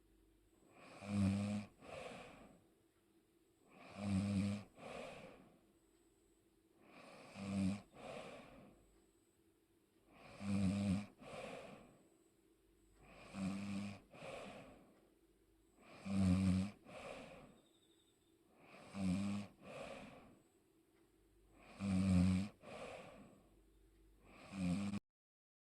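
A person snoring in their sleep, about one snore every three seconds. Each loud, buzzing in-breath snore is followed by a shorter, softer out-breath. The sound cuts off abruptly near the end.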